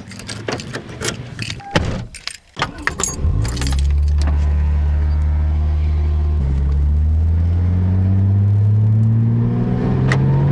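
Car door handle and door clicking open, with keys jangling, then the Toyota Mark II's 1JZ-GTE twin-turbo straight-six starts about three seconds in and idles steadily. Its pitch rises slowly near the end as the car pulls away.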